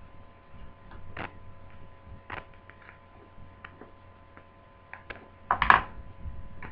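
Scattered light plastic clicks and taps as a laptop's plastic screen bezel, held on by sticky tape, is pried loose by hand, with a louder clatter a little before the end.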